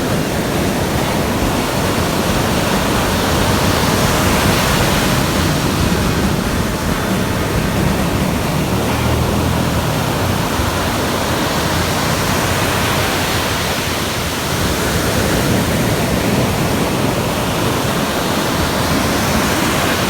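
Sea surf washing in and breaking on the beach, a steady rushing noise with no let-up.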